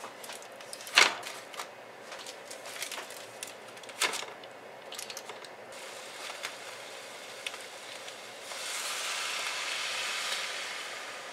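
Foil-wrapped packets set down in a non-stick frying pan, with sharp knocks and foil crinkling; the loudest knock comes about a second in and another about four seconds in. Near the end, water is poured into the pan, a steady rush lasting about two seconds.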